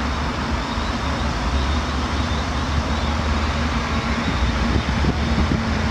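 Steady road traffic noise with a constant deep rumble; a faint engine hum comes in near the end.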